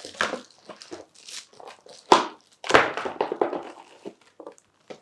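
A cardboard keyboard box and its packing being opened and handled: irregular rustling and scraping, with two louder thunks a little before and just after halfway.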